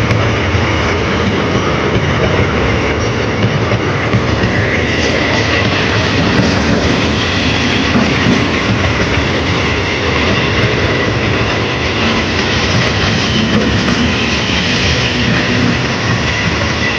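An old-model Bardhaman–Howrah EMU electric local train running on the rails: steady loud wheel and rail noise with clickety-clack. A faint steady whine joins in about five seconds in.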